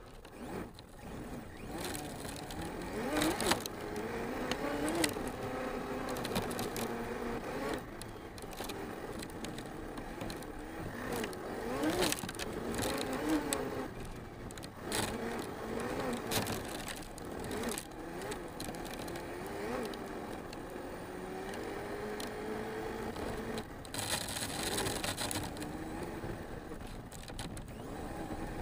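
Arrma Mojave 6s RC truck's brushless motor whining, its pitch rising and falling with the throttle, with repeated knocks as the truck bounces over rough ground and the tyres scraping on dirt; a rush of gritty scraping comes near the end.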